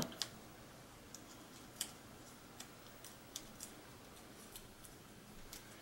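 Faint, scattered small clicks and crinkles of fingers handling a strip of masking tape wrapped around the end of a piece of yarn.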